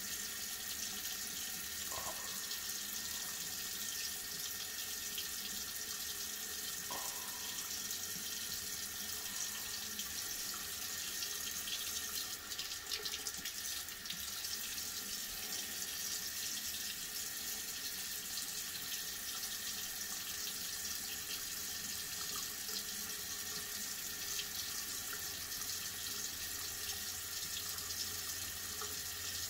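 Water running steadily from a tap or shower, a constant hiss, with a brief louder patch of noise about twelve seconds in.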